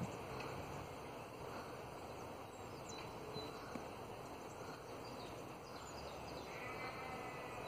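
Spring outdoor ambience: a steady background hiss and rumble with faint, scattered small-bird chirps, and a short trilled call about six and a half seconds in.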